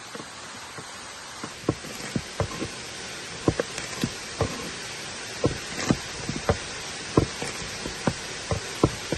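Knife chopping vegetables on a cutting board: irregular sharp knocks, about two a second, starting about a second and a half in, over a steady rushing hiss of falling water.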